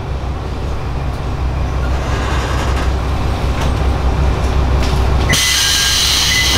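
Diesel railcar's engine idling with a steady low rumble while the train stands at a station. About five seconds in, a sudden loud hiss with two high steady squealing tones cuts in over it.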